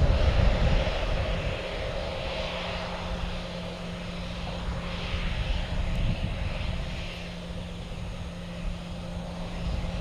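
Boeing 737-800's CFM56 jet engines running at low taxi thrust: a steady hum over a low, uneven rumble, loudest at the start and easing over the first couple of seconds.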